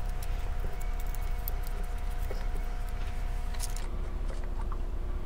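Faint clicks and light clinks of hands handling a can of ABS cement and its applicator, with a brighter cluster of clicks just before four seconds in. Underneath runs a steady low background hum with a faint steady tone that steps lower at about the same point.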